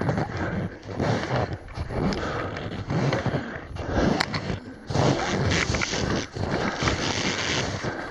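Crampon footsteps crunching in glacier snow at a slow walking pace, about one step a second, over a continuous rushing noise.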